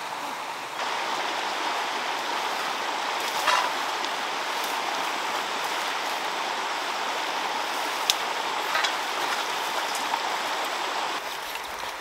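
Steady rushing of running water that starts sharply about a second in and stops shortly before the end, with a few light clicks over it.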